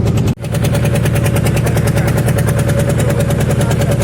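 An engine running steadily with a fast, even chugging, cut by a brief dropout in the recording about a third of a second in.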